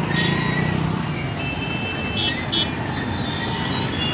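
Busy road traffic: a steady din of vehicle engines and road noise, with two short high-pitched beeps a little after two seconds in.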